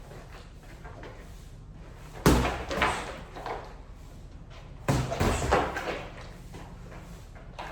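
Punches landing in a sparring exchange: two flurries, about two seconds in and again about five seconds in, each a hard hit followed by a few lighter ones.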